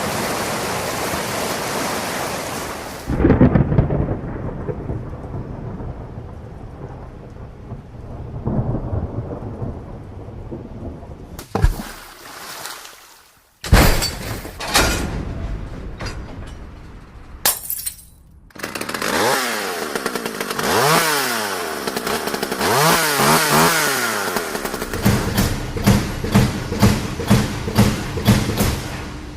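A sequence of sound effects: a steady hiss of rain, then deep rumbling thunder swelling and fading. After several abrupt cuts and short sharp sounds, repeated rising and falling pitch sweeps make up the last third.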